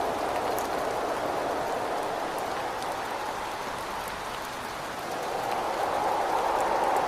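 Steady rain with gusting wind against a window. The wind eases a little midway and swells again near the end, with scattered drops ticking.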